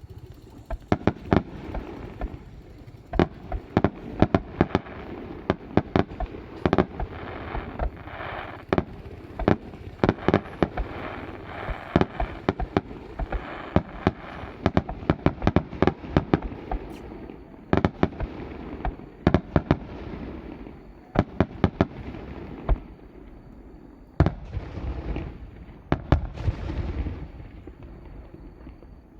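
Fireworks display in a rapid barrage: many sharp bangs of shells bursting, several a second, with crackling between them. It thins out for a moment about three quarters of the way through, then another volley follows.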